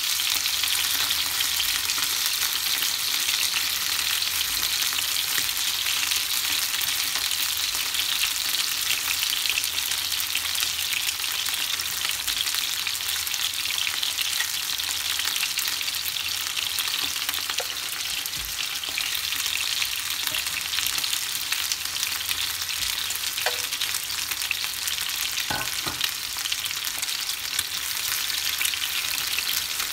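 Marinated chicken wings sizzling as they pan-fry in a nonstick frying pan, a steady hiss, with a few faint clicks as chopsticks turn the pieces.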